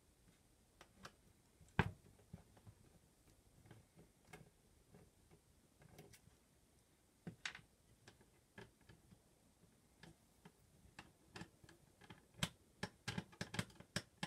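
Hand screwdriver turning small screws in the metal chassis of a Quick Disk drive: faint, irregular clicks and ticks of the tip in the screw heads and the metal, with one sharper click about two seconds in and quicker clicking near the end.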